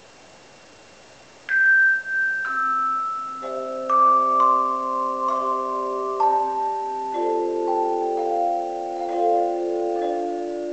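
Tone chimes, tuned handheld metal tubes struck by a built-in clapper, ringing: about a second and a half in, single notes start one after another in a descending melody, each left to ring on. From about three and a half seconds in, lower notes join and are held under the melody, so that several notes sound together as chords.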